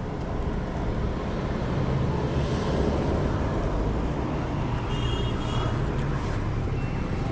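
Steady street traffic: vehicle engines and tyres running past, with a faint high tone about five seconds in.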